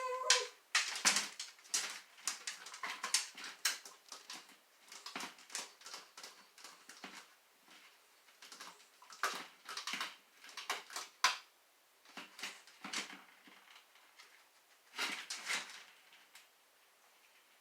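A dachshund whines briefly at the start, then a long irregular run of short scratching and knocking sounds as it paws at a puzzle toy, trying to get a ball out.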